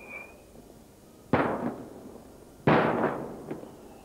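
Aerial firework shells bursting overhead: two loud bangs about a second and a half apart, each trailing off in a long echo, then a smaller crack near the end.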